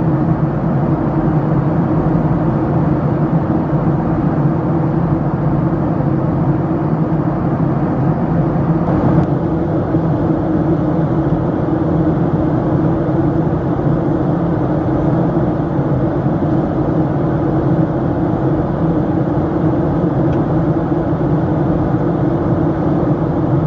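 Steady cabin noise of a Boeing 737-700 in flight: the CFM56 engines' drone with a low hum, under a rush of air. About nine seconds in the hiss eases slightly.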